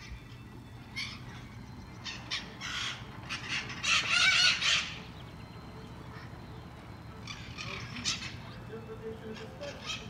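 A flock of feral parrots screeching in bursts of harsh calls, the loudest and longest burst about four seconds in and another cluster of calls around eight seconds.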